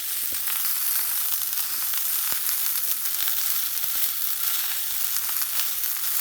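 Sirloin steak sizzling in a heavy frying pan on the pan's retained heat with the stove off, butter on top melting down into the fat. A steady hiss with small scattered pops and crackles.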